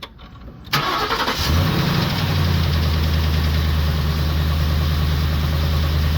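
Car engine cranked on a dead battery boosted by a portable jump starter: the starter turns it over for about a second, then it catches and settles into a steady idle.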